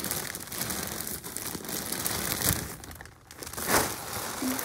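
Clear plastic bags full of loose cardboard jigsaw pieces crinkling as they are handled and shifted in the box, with a louder crinkle late on.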